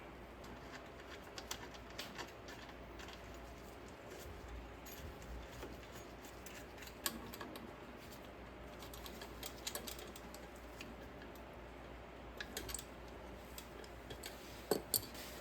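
Faint, scattered clicks and light taps of brake parts being handled on a workbench, with a slightly louder knock about seven seconds in and two near the end.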